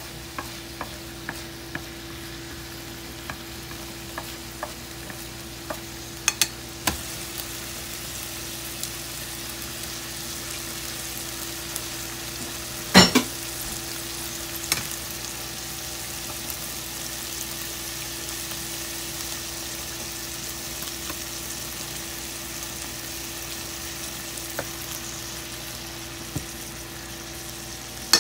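Pork and vegetables sizzling in a frying pan, with chopsticks clicking against the pan during the first several seconds of stir-frying. About halfway through comes a sharp crack as an egg is broken into the pan, and after it the sizzle grows brighter as the egg fries. A steady low hum sits underneath.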